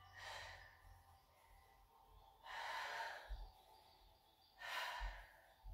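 A woman breathing hard while holding a plank: three faint, breathy exhalations, about two seconds apart.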